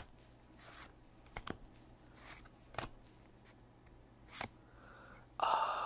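Pokémon trading cards handled and flipped through one at a time, giving scattered soft clicks and slides of card on card. Near the end a louder hiss lasts about a second.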